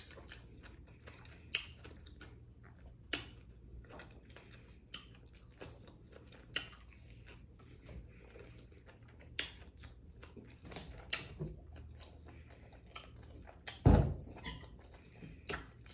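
Close-miked chewing of fried fish, with soft wet mouth sounds and small crunches at irregular moments. Near the end there is a single loud thump.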